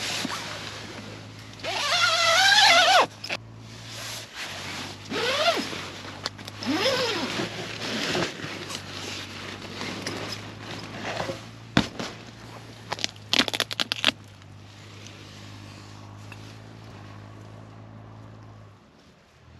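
Tent door zipper being pulled in several quick strokes, each a rasping sweep that rises and falls in pitch, the loudest about two seconds in, followed by a run of sharp clicks. Near the end only a steady soft hiss remains, with rain falling on the tent.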